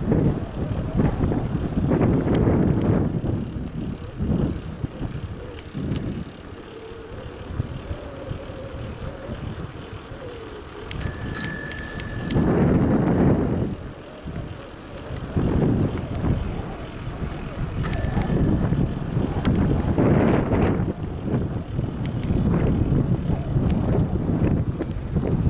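Wind buffeting the microphone in uneven gusts while moving, a loud low rumble that swells and fades. A short high tone sounds twice, about eleven and eighteen seconds in.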